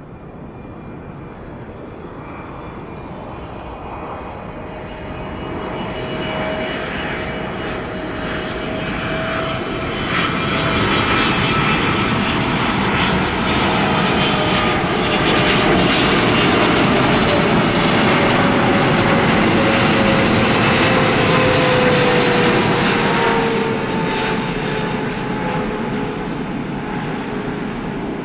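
Boeing 777-200LR's GE90 turbofans on final approach, growing steadily louder as the jet comes close and passes, with a whining tone that slowly drops in pitch after the loudest point.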